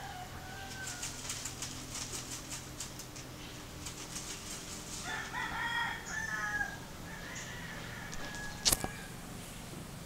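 Budgie scratching about in seed inside a plastic hanging seed cup: a fast run of dry, scratchy clicks, about three or four a second, over the first few seconds. Later come about two seconds of chirping bird calls, and a single sharp click near the end.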